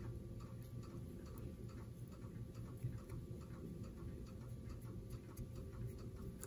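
Faint, regular ticking at an even pace of a little over two ticks a second, over a low steady hum.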